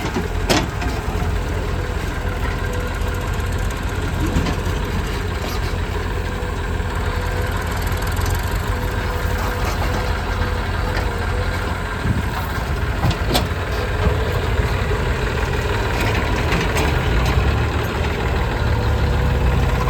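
Diesel engine of a JCB 3DX backhoe loader running steadily, with a couple of sharp knocks about half a second in and again past the middle.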